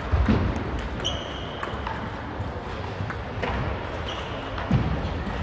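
Table tennis rally: the plastic ball clicking off bats and table, with low thuds of footsteps and two short shoe squeaks on the wooden floor, about a second in and about four seconds in.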